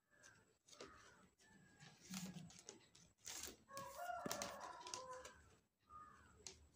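Faint crackling and rustling of flat plastic craft wire strips being pulled and knotted by hand, with a bird calling in the background; its longest, loudest call comes about four seconds in.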